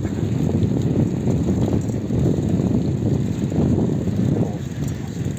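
Wind buffeting the microphone of a camera on a moving bicycle: a loud, low, gusty rush that swells and eases.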